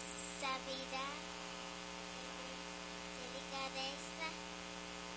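Steady electrical mains hum throughout. A young girl speaks softly into a handheld microphone near the start and again about three and a half seconds in.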